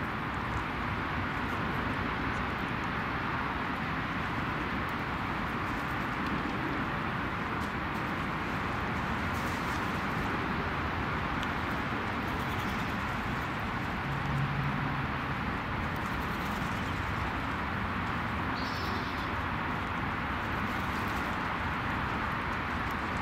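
Steady outdoor background hiss at an even level, with one short low coo, about a second long, about two-thirds of the way through.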